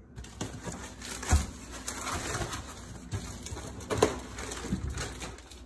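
Plastic wrapping crinkling and packing rubbing against the cardboard box as a boxed appliance is pulled out, with two louder thumps, one about a second and a half in and the loudest about four seconds in.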